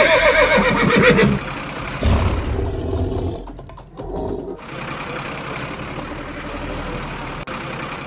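Horse whinny sound effect, a wavering call that ends about a second in, followed by a low rumble and quieter background sound.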